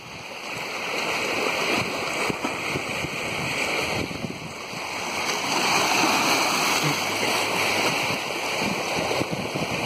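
Seawater washing and splashing over shoreline rocks in small breaking waves, a continuous rushing wash that grows louder about halfway through.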